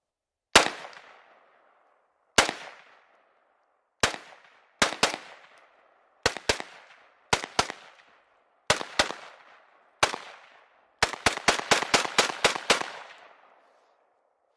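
AR-15 rifle in 5.56 firing semi-automatically: about a dozen single shots and quick pairs a second or two apart, then a fast string of about nine shots at roughly five a second, each shot ringing out with an echoing tail. The shots are loud enough to max out the camera microphone.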